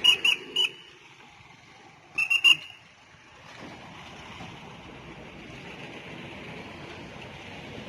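A whistle blown in two sets of three short, shrill blasts, the first at the start and the second about two seconds in, over a steady outdoor background hum.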